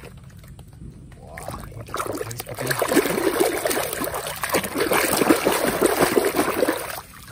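Muddy water splashing and sloshing in a basin as a hand scrubs a mud-caked toy vehicle under the water. It starts about a second and a half in and stops just before the end.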